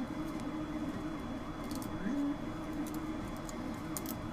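Small sharp clicks and crackles of 3D-printed plastic support material being snapped and picked away by hand from a single-print adjustable wrench, heard about halfway through and again near the end. A steady low hum runs underneath.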